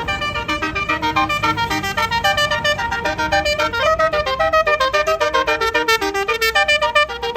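Bus's Basuri telolet musical horn playing a fast melody of short pitched notes, several a second, over a low rumble.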